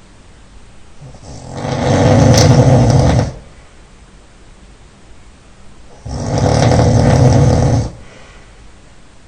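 A man snoring loudly: two long snores about four and a half seconds apart, each lasting nearly two seconds, with quiet breathing between.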